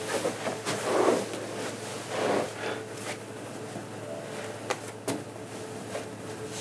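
A person sitting down at a dining table: a wooden chair shifting and clothes rustling, then a few light clicks and taps as things are handled at the place setting, over a faint steady hum.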